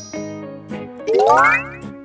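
Children's background music with a cartoon sound effect, a boing-like glide that rises in pitch, starting about a second in.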